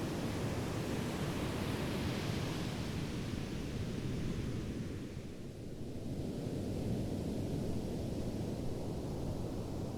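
Ocean waves washing on the shore in a steady rush, one wash swelling about two seconds in and ebbing away just after five seconds.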